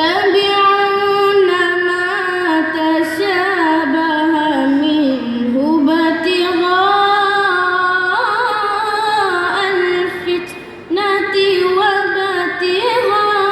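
A young man's voice chanting Quran recitation in a melodic style, with long held notes that bend and trill. There is a short breath pause about ten and a half seconds in.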